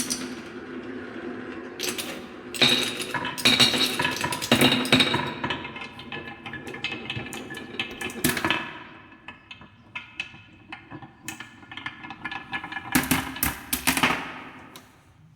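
Marbles rolling and clattering down a wooden HABA marble run, with many quick clicks and knocks as they hit the track and each other. The clatter is busiest about three to five seconds in and again near the end, and thins out in between.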